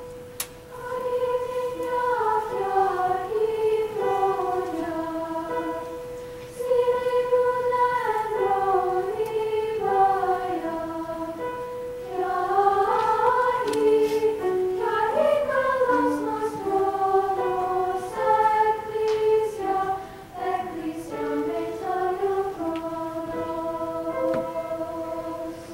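A treble choir of young women's voices singing in parts, several melodic lines moving together with held notes, starting a little louder about a second in.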